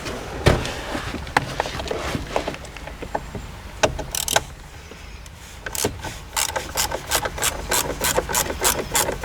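A 1/4-inch ratchet working the T30 Torx screws on a steering wheel: a few scattered clicks and knocks at first, then a steady run of ratchet clicks, about four a second, starting a little under six seconds in.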